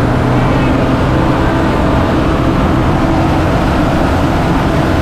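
A large vehicle's engine running steadily with a low, even hum.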